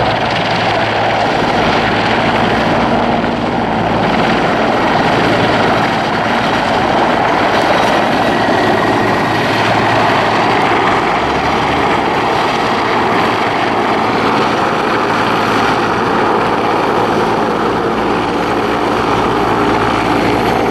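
Mi-24 assault helicopter's twin turbine engines and main rotor running loud and steady as it flies low.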